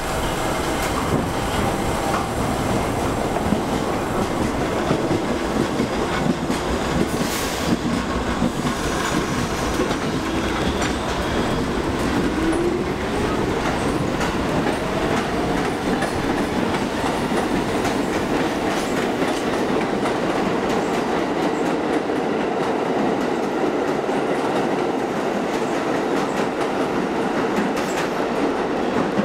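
NYC subway rail adhesion train of R32, R42 and converted R30 cars pulling out of the station and running away down the tunnel: a steady rumble with wheels clacking over the rail joints. The deep rumble thins out in the second half as the train draws away.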